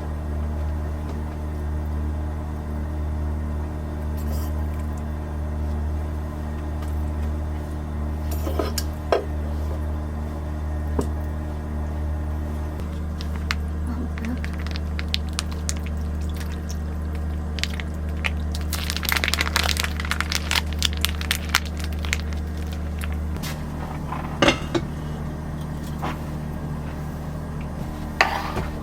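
A steady low machine hum that shifts in pitch twice, with scattered clicks and a run of light clinking and clattering of dishes and glass about two-thirds of the way through.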